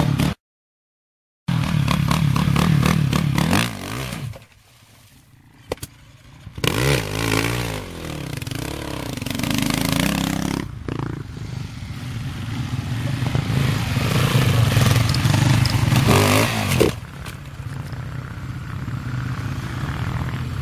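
Enduro motorcycle engines revving up and down as dirt bikes ride past. The sound cuts out completely for about a second near the start and dips low for a couple of seconds before picking up again.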